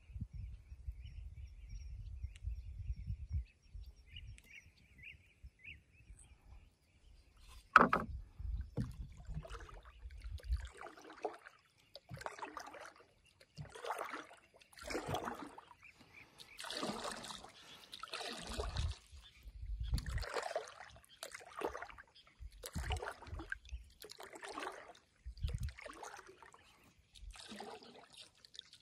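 Water swishing and splashing in a steady rhythm about once a second, like paddle strokes beside a small boat. There is a sharp knock about eight seconds in, the loudest sound. A low rumble runs through the first few seconds.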